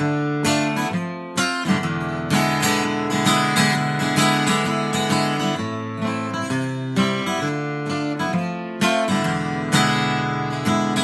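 Solo acoustic guitar strummed in a steady rhythm, chord after chord.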